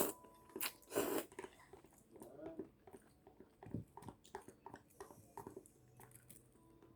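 Chewing and biting on chicken and noodles, with irregular short crunches and clicks.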